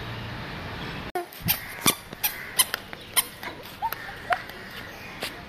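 A toddler's squeaky shoes squeaking sharply with each step, at an uneven walking pace, starting about a second in.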